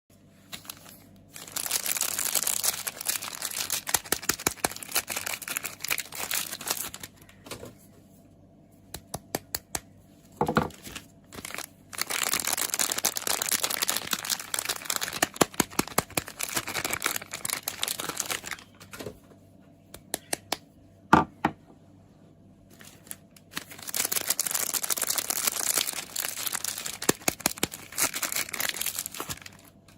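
Soap bar packaging being unwrapped and torn open: three long stretches of crinkling and tearing, each several seconds, with scattered sharp clicks and taps in the pauses between.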